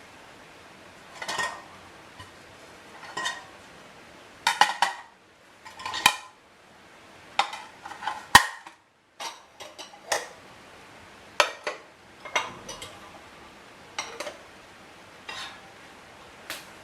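Dishes and kitchen utensils being handled and set down: a dozen or so irregular clinks and knocks, several ringing briefly.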